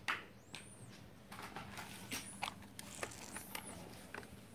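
Toy cars being handled and set down on a blanket: soft knocks and rustles, the loudest knock just after the start, with faint high squeaks three times.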